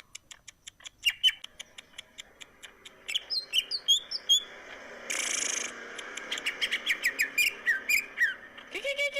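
Green leafbird (cucak ijo) singing a fast, varied song of sharp chips, whistled notes and falling slurs, with a harsh buzzy burst about five seconds in.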